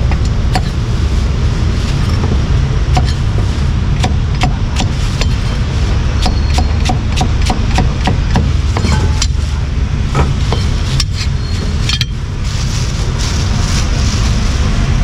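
A steel cleaver chopping cucumber on a thick round wooden chopping block: a run of sharp knocks that quickens to about three a second in the middle and stops about twelve seconds in. Steady low rumble of street traffic underneath.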